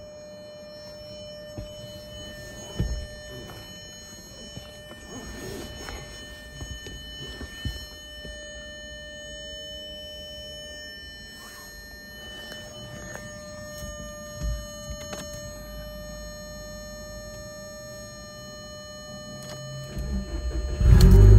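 A few soft handling knocks over a steady high-pitched tone. Near the end, the 2003 VW GTI's 1.8-litre turbo four-cylinder cranks and fires on a cold start, getting suddenly loud.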